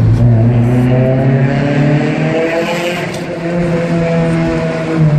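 Acura Integra's four-cylinder engine pulling hard under acceleration in a tunnel, its pitch climbing steadily with a brief dip midway. It is loud.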